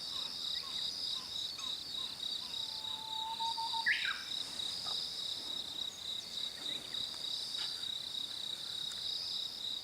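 Steady, high-pitched chorus of insects buzzing without a break. About midway a bird gives a thin, drawn-out whistle, then a short sharp call.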